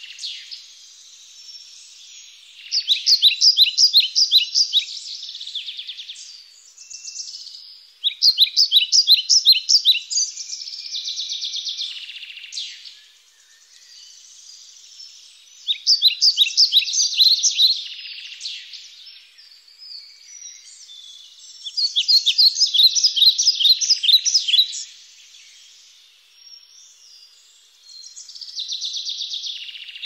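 Birds singing: a loud phrase of rapid, high chirps repeats about every six seconds, with softer chirping between.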